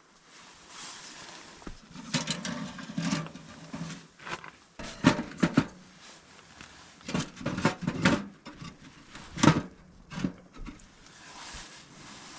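Irregular knocks, clatters and rustling from firewood and kindling being handled and loaded into a wood-burning stove while a fire is laid and lit.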